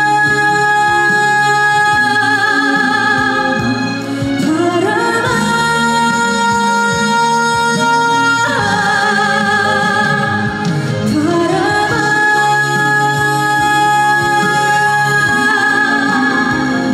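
Live trot music: a young female singer's voice over a backing track, holding long notes with vibrato and sliding up in pitch into new phrases.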